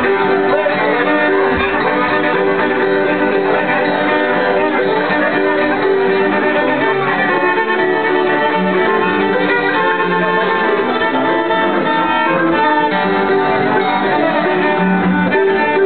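Acoustic string band playing an instrumental break, a fiddle taking the lead over strummed acoustic guitars.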